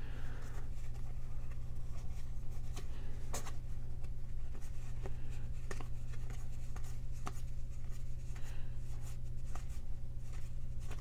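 Hands flipping and sliding through a stack of 1970s cardboard baseball cards: irregular light flicks and rustles of card against card, over a steady low hum.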